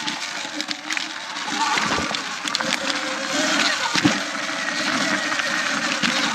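Sur Ron X electric dirt bike riding a dirt trail: a faint motor whine rising and falling in pitch, under a steady rush of wind and tyre noise with scattered clicks and knocks from the trail surface.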